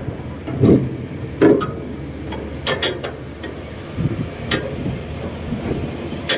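A semi-truck with an empty container trailer: a steady low rumble with about five sharp metal clanks and knocks spaced irregularly, a second or so apart.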